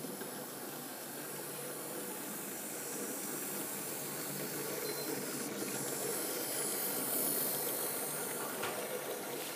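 Model train running on its track: a steady electric-motor hum and wheel-on-rail hiss that grows louder as the tank locomotive and its coaches come round the curve and pass close by, loudest about seven seconds in.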